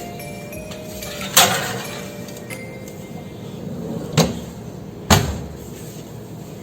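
Three sharp knocks or thumps, the first a little over a second in and two more about a second apart later, over soft background music.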